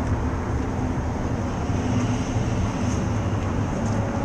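Steady low mechanical drone with a constant hum, unbroken throughout.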